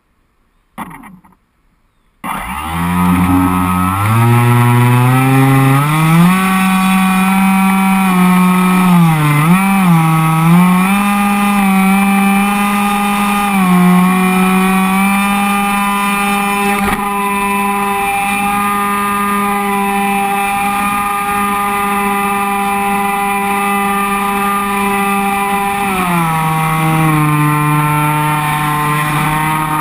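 Brushless electric motor and propeller of an FPVRaptor flying-wing model plane spinning up about two seconds in. It gives a loud steady whine that climbs in pitch, wobbles briefly, holds, and drops a little near the end as the throttle eases.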